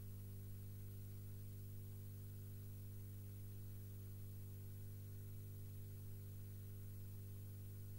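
Steady low electrical hum with a stack of higher hum tones above it and a faint even hiss, unchanging throughout; no sound from the windsurfing scene itself is heard.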